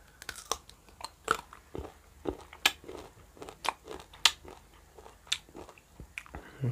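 Biting into and chewing crisp raw green mango: a string of sharp, irregular crunches, about two a second.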